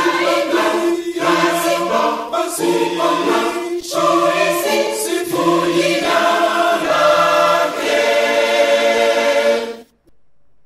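Mixed-voice church choir singing a hymn in harmony, closing on a long held final chord that cuts off sharply near the end.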